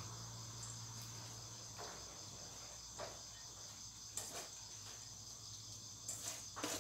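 Faint steady trilling of crickets over a low steady hum, with a few soft taps as glass noodles are dropped from a metal bowl into a wok.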